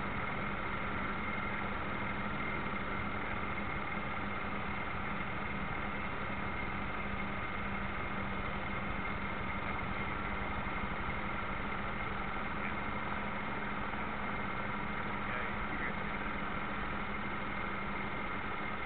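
Radio-controlled model destroyer's drive motor running steadily under way, heard from on board the model: a constant hum with a steady higher whine above it.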